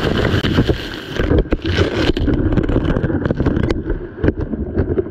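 Action camera in a waterproof housing underwater beneath river ice, picking up a loud, muffled rumble with many irregular sharp knocks as the housing is handled and bumps about in the ice hole.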